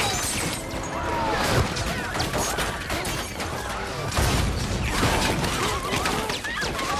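Film battle sound effects: a dense run of gunfire impacts and crashing debris, with a heavy explosion about four seconds in as a car bursts into flames.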